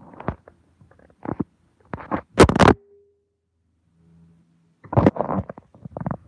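Handling noise from a phone's microphone rubbing and scraping against fabric or a hand while the lens is covered. It comes as irregular scuffs with a sharper scrape about two and a half seconds in and a quiet gap after it.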